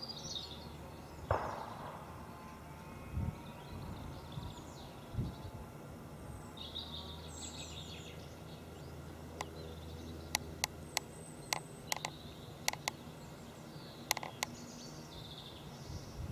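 Outdoor ambience with small birds chirping on and off, a thump about a second in, and a run of sharp clicks in the second half.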